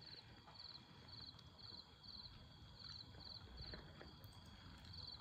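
Near silence with faint cricket chirping: short high chirps about twice a second, over a faint steady high tone.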